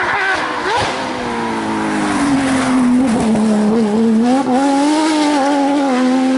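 Race car engine at high revs, its pitch dropping sharply just under a second in and sinking further around three seconds, as on a downshift or lift-off, then rising again from about four seconds in as the car accelerates.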